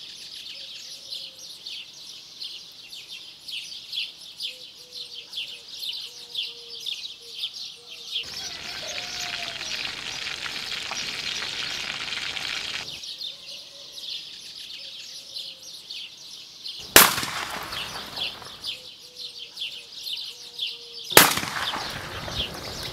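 Two shotgun shots about four seconds apart, each a sharp bang with a short tail, over continuous chirping of birds. A stretch of steady hiss comes in the middle, before the shots.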